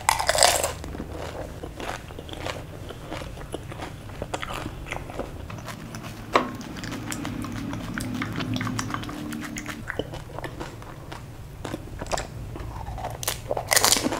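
Close-miked eating of pani puri: a loud crunch as a whole crisp puri shell is bitten, then wet chewing and mouth clicks, and another crunchy bite of a second puri near the end.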